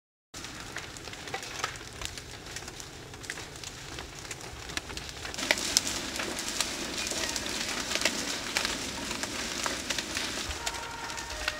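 Large house-roof fire, the attic burning through the roof, with a steady rush of flames and many sharp crackles and pops of burning timber. It cuts in just after a brief silence and grows louder about halfway through.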